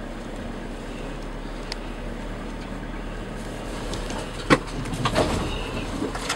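Inside a vehicle's cabin driving slowly off-road over rough bush track: steady engine and road rumble, with a sharp knock about four and a half seconds in and a few smaller knocks just after it.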